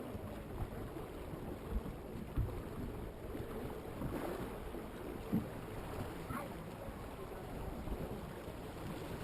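Steady wind and water noise aboard a moving electric boat, with wind buffeting the microphone. A few short low thumps come about two, two and a half, and five and a half seconds in.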